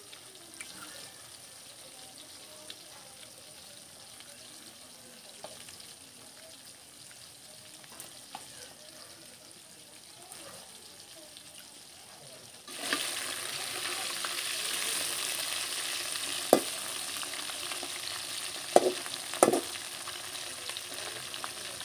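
Small fish frying in hot oil in a metal kadhai: an even sizzle that starts suddenly about two-thirds of the way through, after a quiet stretch with only a few faint ticks. Near the end a perforated ladle strikes the pan with a few sharp clinks.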